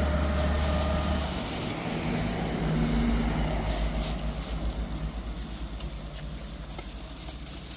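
Engine running with a low, pulsing rumble that fades over several seconds.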